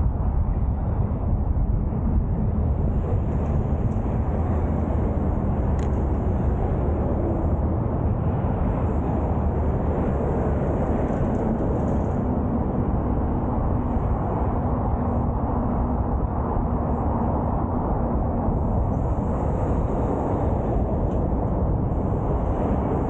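Wind buffeting the microphones of an Insta360 One X2 360 camera on a moving bicycle, a steady low rumble.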